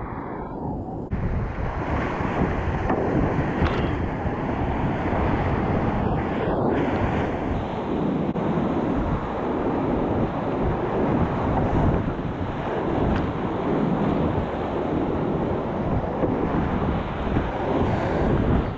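Rushing whitewater of a river run, a loud, churning noise that rises and falls, with wind buffeting the microphone.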